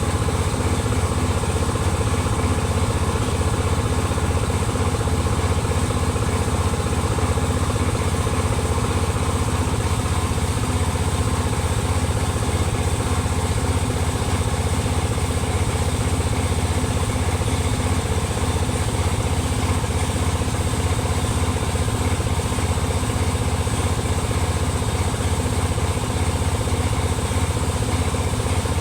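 Diesel truck engine idling steadily with an even, rapid pulse and no change in speed.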